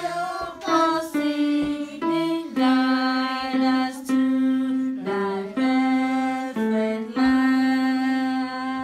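Portable electronic keyboard playing a slow tune in held, steady notes, with children singing along.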